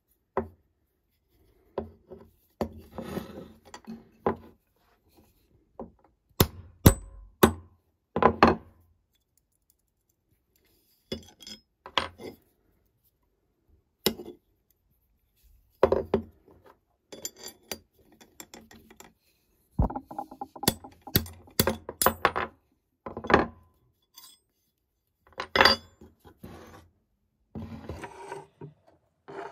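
Metal hand tools and parts of a rusty adjustable wrench being handled on a workbench: scattered clinks, knocks and short rubbing scrapes, some in quick clusters, with silent gaps between them.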